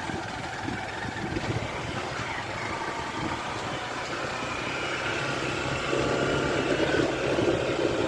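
Small motorcycle engine running while riding along a rough dirt road; its steady hum grows a little louder in the second half.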